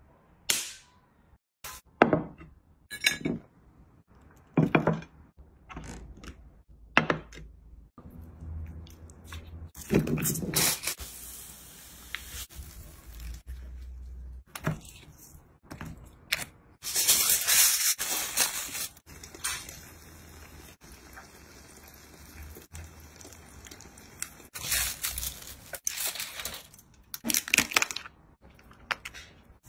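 Table and eating sounds: scattered clinks and knocks of dishes and a glass, with several longer crackly bursts of grilled lobster and roast chicken being pulled apart and eaten.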